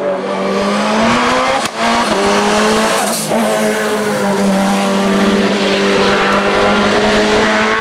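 Race car engine running hard at high revs as the car climbs past, the pitch rising briefly before a quick upshift about one and a half seconds in, then holding a fairly steady note.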